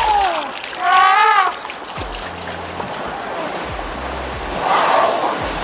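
Asian elephants wading through a shallow river, water rushing and splashing around them. About a second in, one loud, high, pitched trumpet call, and a shorter, rougher burst of sound near the end.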